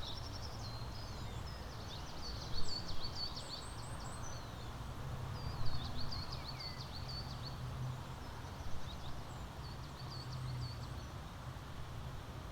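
Small songbirds chirping in several short bursts of rapid high chirps, over a steady low rumble.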